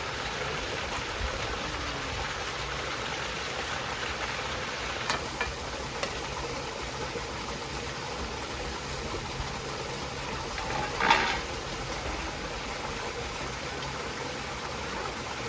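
Steady rushing of a stream. A few light clicks come about five seconds in, and a brief louder knock or clatter comes about eleven seconds in.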